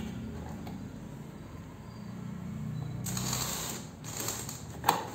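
Cardboard laptop box being handled on a stone countertop: a rustling scrape as it is slid about three seconds in, then a sharp tap near the end, over a low steady hum.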